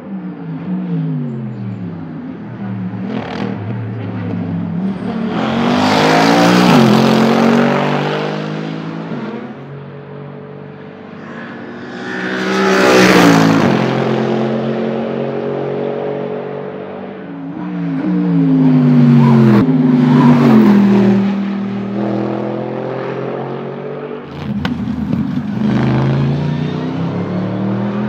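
Mercedes SLS AMG GT3 race cars' V8 engines at racing speed, passing close several times. The engine note drops through downshifts under braking and climbs again as they accelerate away, with short sharp cracks between shifts.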